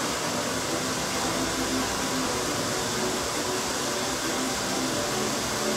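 Steady rushing noise of blowing air from a running blower, even and unbroken throughout.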